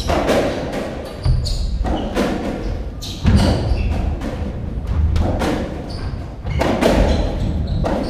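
Racketball rally on a squash court: the ball cracking off rackets and walls every second or so, with footsteps thudding and shoes squeaking on the wooden floor.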